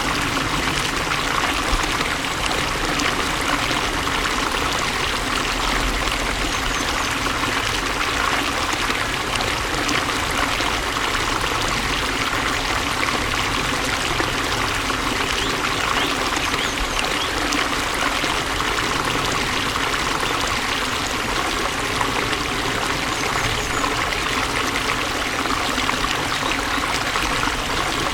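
Flowing water running steadily, an even splashing rush with no breaks or changes.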